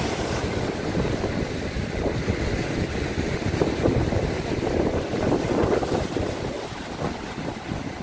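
Strong wind buffeting the microphone in gusts, over rough sea surf washing and breaking along the shore.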